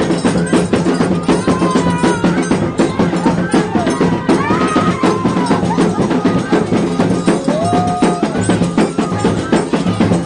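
Folk percussion music accompanying a bumba-meu-boi dance: drums and a fast, busy beat of clacking strokes, played continuously.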